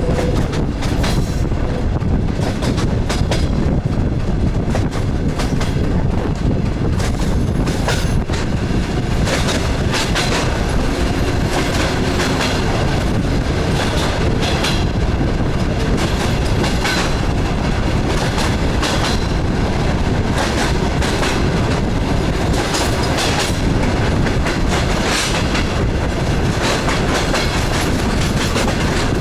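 DR1A diesel multiple unit under way, heard from aboard: a steady rumble with wheels clattering over the rail joints in irregular clicks.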